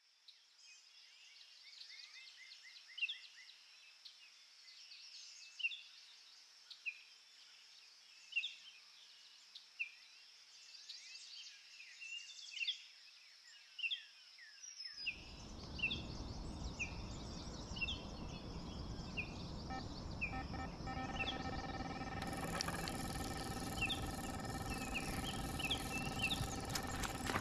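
Birds singing at dawn, a run of short chirps repeating every second or so. About halfway in, a steady rushing noise comes in under the birdsong, and a few seconds later a steady hum of several even tones joins it.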